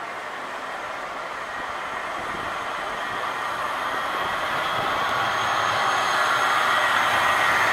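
Low-floor electric tram approaching on street-running rails and passing close by, its rolling noise growing steadily louder.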